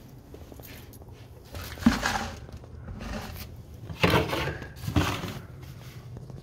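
Three scuffing footsteps on a vinyl-tile floor, about two, four and five seconds in.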